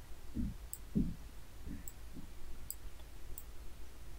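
A computer mouse clicking: about four light, sharp clicks spread through a few seconds. Among them are several soft low thumps, the loudest about a second in.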